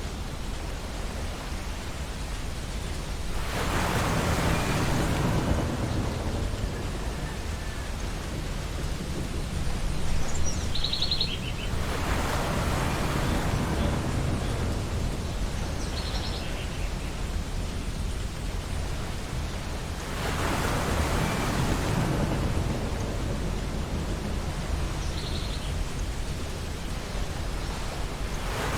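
Ocean waves breaking on a beach, a steady wash with a crash swelling up about every eight seconds, three times. A few short, high bird calls sound over it, the clearest about a third of the way in.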